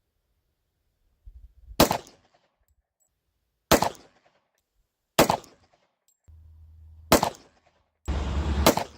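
Five 10mm pistol shots from a Glock G29 Gen 4, fired slowly one at a time about one and a half to two seconds apart. Each is a sharp crack with a short echo.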